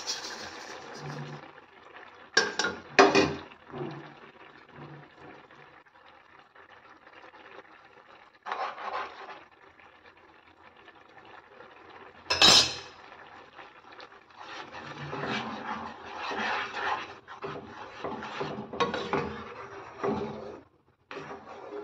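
Spatula stirring and scraping thick chana dal around a non-stick kadai, with sharp clatters of utensils against the pan about three seconds in and again about twelve seconds in.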